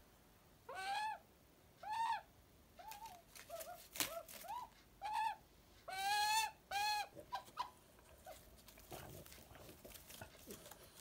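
Australian magpie calling: a string of about eight short, arching notes over the first seven seconds, with a sharp click about four seconds in. Then only faint rustling and tapping.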